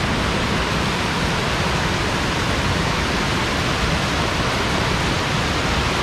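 Waterfall and fast-flowing stream water rushing: a steady, even noise with no breaks.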